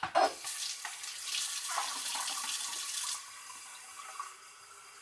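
Kitchen tap running in a steady rush for about two and a half seconds, then turned off.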